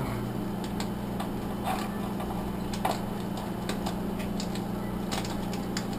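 Scattered light clicks and crinkles from a plastic fish bag being handled at the top of a small aquarium, over a steady low hum.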